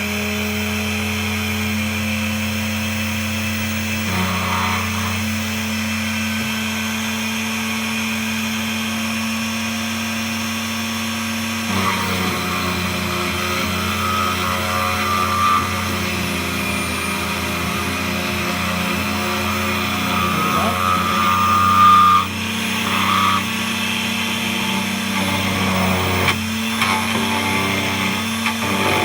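DEFU 368A key-cutting machine's motor running steadily while its cutter mills a Honda laser-cut key blank, the pitch of the cutting shifting now and then as the bit meets the metal, with a short louder moment about three quarters of the way through.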